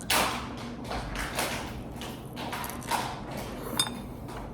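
A few soft taps and rustles of handling, with a sharper click a little before the end.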